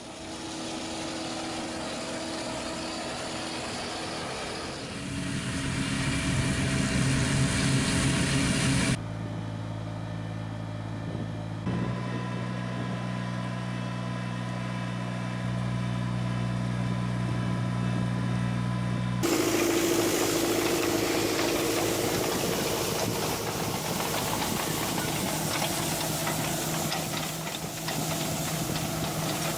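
Diesel engines of farm machinery running steadily, in three successive clips, with abrupt changes about nine and nineteen seconds in.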